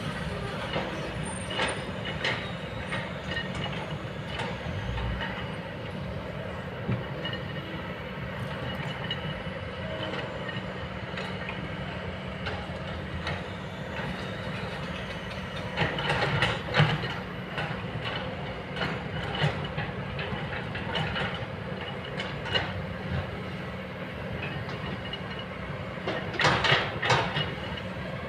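A Kobelco long-boom excavator's diesel engine runs steadily under load, with scattered clanks and scrapes from the bucket and boom. There are two louder bursts of clattering, about 16 seconds in and again near the end.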